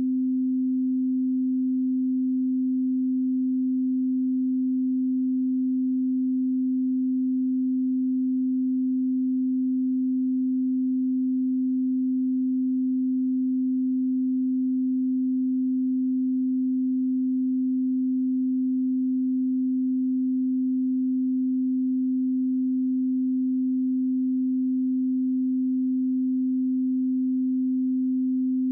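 Steady 258 Hz pure sine tone, a single low hum with no overtones, held at constant level: an audio calibration test signal.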